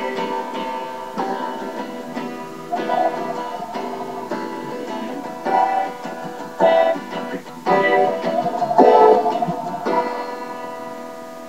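Steel-string acoustic guitar played solo, chords strummed and picked at an unhurried pace, the last chord ringing and fading near the end.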